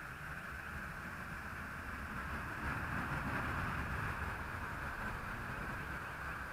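Steady, quiet outdoor background noise: a low rumble with a faint even hiss, and no distinct sound event.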